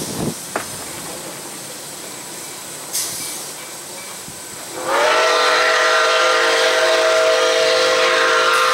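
Nickel Plate Road 765, a Lima-built 2-8-4 Berkshire steam locomotive, sounds its chime whistle about five seconds in: one long, loud chord of several notes that slides up slightly as it opens and is held to the end. Before the whistle there is only a low steady hiss.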